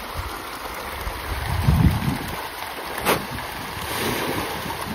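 A dense shoal of fish thrashing and splashing at the surface of a pond as feed is thrown in, a continuous churning of water. Wind buffets the microphone about two seconds in, and a single sharp smack comes about three seconds in.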